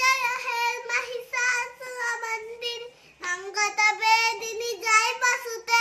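A young girl singing in a high child's voice, in phrases of held notes, with a short break about three seconds in.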